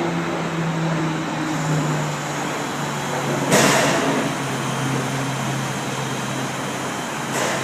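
Drill press motor running with a steady hum that slowly sinks in pitch. It is broken by two short, harsh noisy bursts, about three and a half seconds in and near the end, which fit the bit cutting as holes are drilled.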